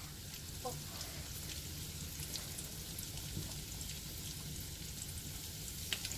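Flour-coated chicken drumsticks deep-frying in hot oil, a steady sizzle with fine crackling.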